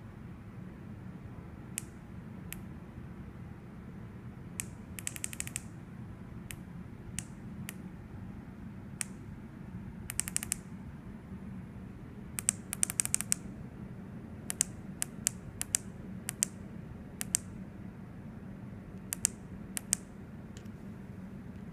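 Small tactile push buttons on a YiHi SX350 vape chip board clicking, pressed singly and in quick runs of several presses, as the chip is locked, switched on and powered off. A steady low hum runs underneath.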